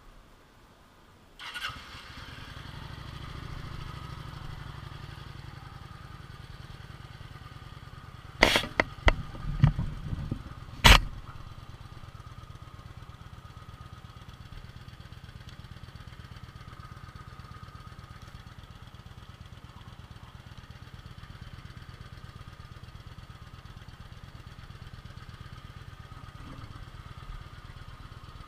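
Kawasaki Vulcan 900 V-twin motorcycle engine started about a second and a half in, then idling steadily. A cluster of sharp knocks comes around eight to eleven seconds in, louder than the engine.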